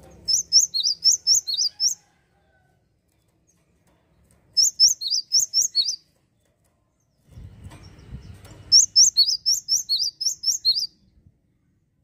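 Cinereous tit (gelatik wingko) singing three bursts of its song. Each burst is a rapid run of repeated two-note phrases, with notes dropping in pitch. A low rustle comes just before the third burst.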